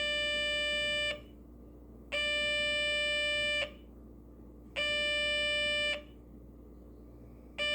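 Light-triggered two-transistor solar alarm kit (a 'crack of the dawn' alarm) sounding: a steady buzzy tone in long beeps of about a second, each followed by a gap of about a second, set off by light falling on its sensor.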